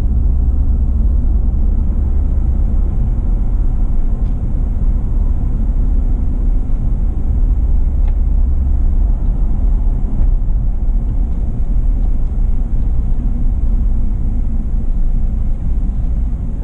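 A car driving slowly: a steady low rumble of engine and road noise.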